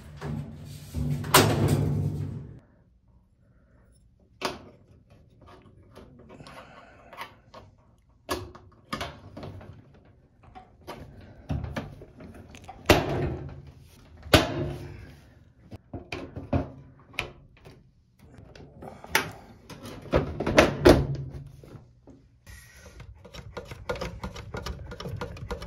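Irregular knocks, clunks and clicks as the washing machine's sheet-metal cabinet top and its parts are handled during reassembly. The loudest is a heavy clunk about a second and a half in, as the top panel comes down.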